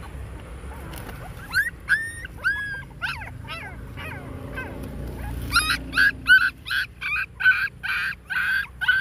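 Young puppies whimpering and crying: a few high, gliding whines, then, from about halfway, a rapid run of short cries, two to three a second.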